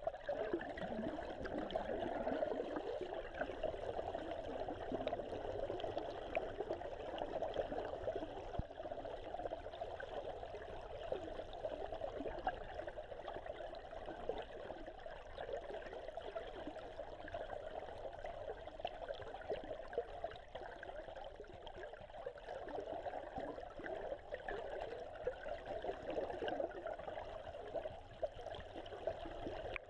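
Steady rush of flowing river water, recorded underwater.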